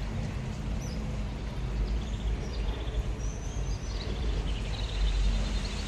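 Outdoor background: a low steady rumble, with small birds chirping a few times, mostly in the second half.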